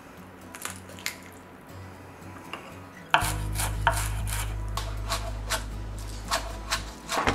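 Chef's knife chopping green onions on a wooden cutting board: quick knife strikes against the wood, about two to three a second, starting about three seconds in.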